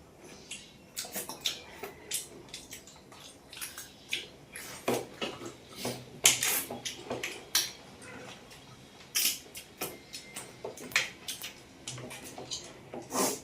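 Close-up eating sounds of rice and fish eaten by hand: wet chewing and lip smacks, with fingers working the food on a plate, in many irregular short clicks and snaps.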